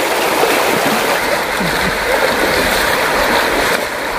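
Shallow, fast-flowing river rushing over stones, with splashing from legs wading through the current.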